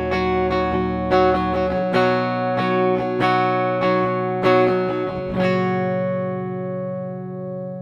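Gibson SG Standard electric guitar on its neck pickup, played with a clean tone: a run of picked and strummed chords, then a last chord about five and a half seconds in left to ring and slowly fade.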